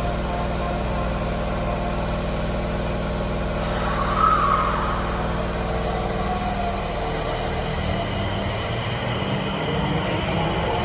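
Higashiyama Line subway train's electrical equipment humming steadily, with a few held whine tones and a short louder whine about four seconds in. The uploader takes the running sound of trains leaving toward Fujigaoka at this station for an abnormal noise.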